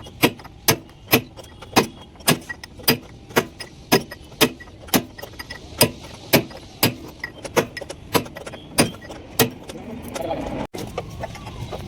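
Hand hammer striking metal in a steady rhythm, about two sharp blows a second. The blows stop near the end.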